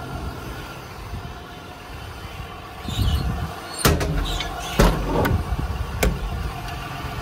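Truck service-body compartment door and its latch being handled: sharp clicks and knocks about four, five and six seconds in, over a steady low hum.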